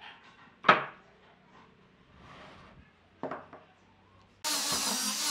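Pine pieces knocked down onto a wooden workbench: one sharp knock under a second in and a softer one past three seconds. About four and a half seconds in, an angle grinder fitted with a sanding disc switches on and runs steadily at full speed.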